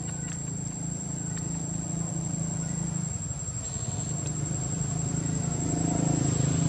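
Outdoor background: a steady high insect drone over a constant low hum.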